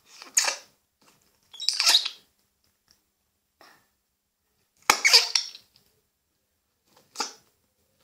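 Homemade slime being kneaded and stretched between the hands, giving four short squelches with pauses between them, the loudest about five seconds in.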